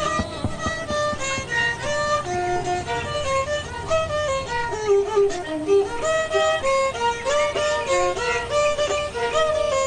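Instrumental music: a melody of quick, stepping notes, some with short slides between them, with no singing.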